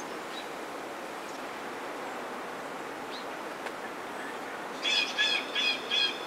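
Wild turkey yelping: a quick run of about seven yelps, roughly three a second, starting near the end, over a steady outdoor background hiss with faint bird chirps.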